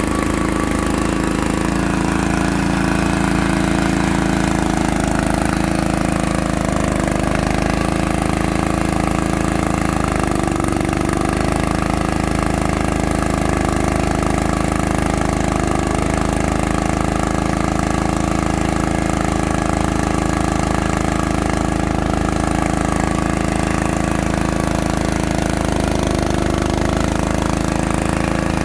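Engine of a core drilling machine running steadily, its pitch dipping slightly now and then as the load changes.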